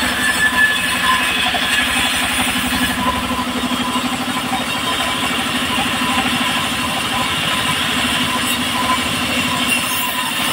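Engine-driven sawmill running steadily while a log is sawn into a plank, the engine's beat fast and even, with the saw's steady ring above it.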